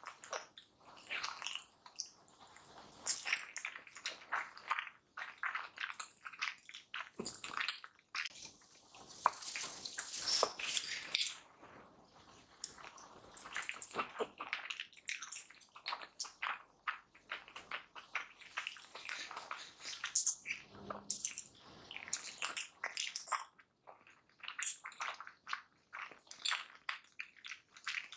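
Close-miked chewing of prawn dumplings coated in chilli oil, making irregular wet clicks and smacks of the mouth and lips.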